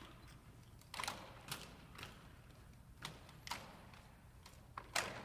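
Drill team performing a manual of arms with rifles in unison: a series of sharp slaps and clacks of hands striking the rifles, spaced about half a second to a second apart, the loudest near the end.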